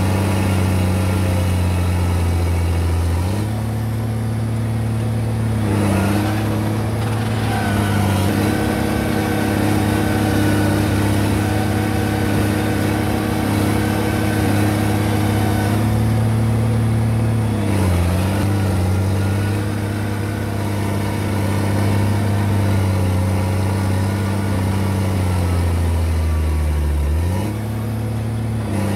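Komatsu D50A crawler dozer's diesel engine running steadily, its pitch briefly sagging and recovering about four times as it takes load.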